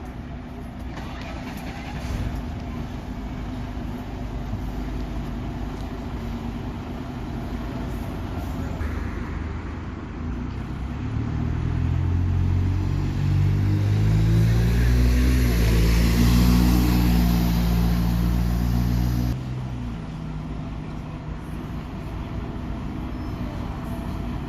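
Heritage bus diesel engine pulling away, rising in pitch and growing louder over several seconds, then dropping away abruptly.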